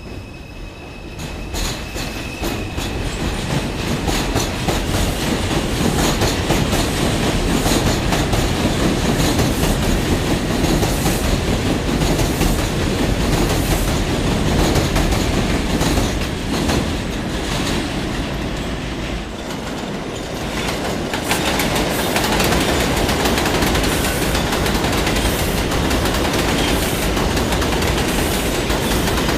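R142 subway train running through the station, its wheels clattering over the rail joints. The noise builds over the first few seconds and stays loud, eases briefly about two-thirds of the way through, then picks up again.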